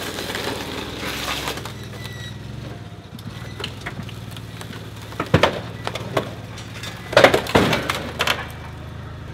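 A Doosan forklift's engine running steadily as its forks lever a pickup cab off its frame, the sheet metal and cab mounts giving way with several sharp cracks and bangs, loudest about five seconds in and again around seven to eight seconds in.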